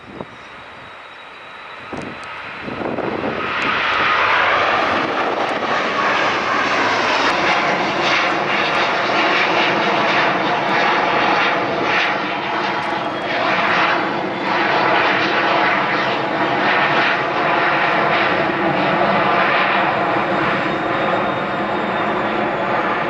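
Airbus A350-1000's twin Rolls-Royce Trent XWB-97 turbofans at takeoff thrust: fairly quiet for the first couple of seconds, then swelling about three seconds in to a loud, steady jet roar as the airliner climbs out. Soon after the roar arrives a tone within it drops in pitch.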